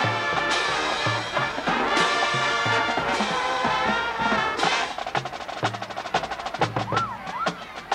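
High school marching band playing: full brass chords over the drums, then about five seconds in the horns drop out and the drum line carries on alone with rapid snare taps and low bass drum hits.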